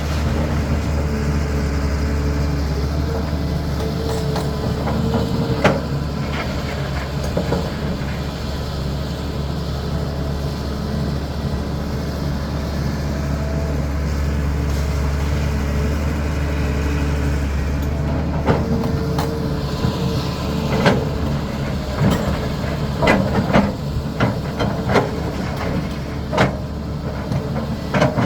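Caterpillar 320D excavator's diesel engine running steadily, with sharp knocks and clanks over it, several in quick succession in the last third.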